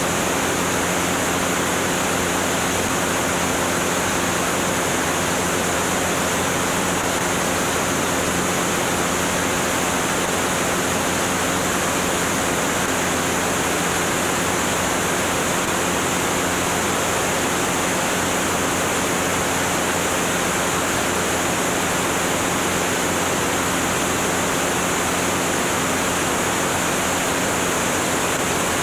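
Steady rush of wind over a camera mounted outside under the wing of a Cessna 205 in cruise flight, with the steady drone of its six-cylinder piston engine and propeller as faint low tones beneath. The sound does not change.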